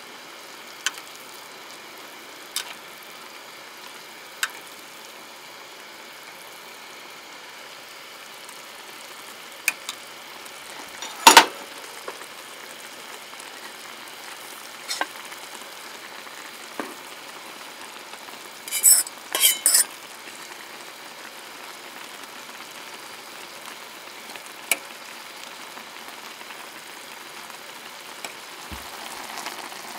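Metal utensils clinking and tapping against metal cookware over a steady hiss. The loudest clink comes about eleven seconds in, and a quick run of clinks comes near twenty seconds.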